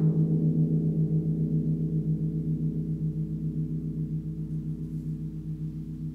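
Large gong tuned to G# (51.91 Hz) ringing on after a soft mallet stroke: a deep, sustained hum with a pulsing waver about five times a second, slowly fading.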